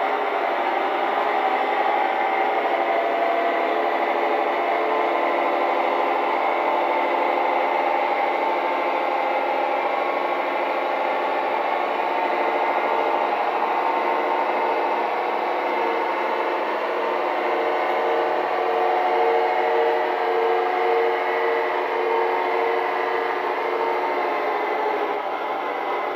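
Sound-equipped gauge 0 model of a V60 diesel shunting locomotive running: the decoder plays a diesel engine sound with a steady pulsing throb, over the rolling of its wheels on the track. The pulsing grows clearer in the second half.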